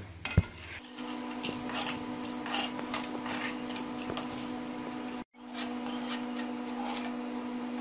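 A metal spoon scraping and clinking against an aluminium kadai as crisp-fried taro slices are scooped out onto a plate, over a steady hum. The sound cuts out for a moment about five seconds in.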